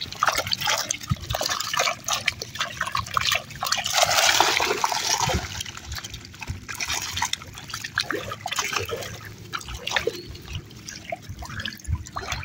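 Shallow lake water splashing and dripping around a wire keep net full of live rudd, in many small splashes, with a louder burst of splashing about four seconds in.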